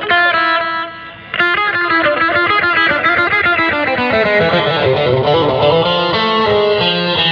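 Recorded music led by electric guitar, played loud over a large sound system, with a brief drop in level about a second in.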